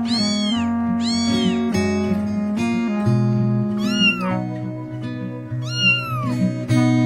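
A cat meowing four times, each call rising then falling in pitch; the first two come close together and the last two are lower and further apart. Background music with plucked guitar runs underneath.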